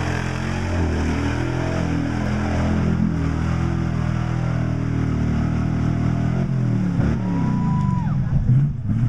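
Chevrolet pickup's engine working hard through a mud pit, running steadily at first, then revving up and down quickly near the end as the tyres churn the mud.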